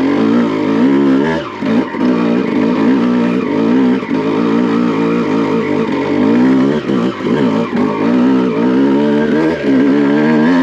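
Honda CR250 single-cylinder two-stroke dirt bike engine chugging at low revs under load up a steep climb. Its pitch wavers up and down as the rear tire grabs the dirt, with brief dips a few times.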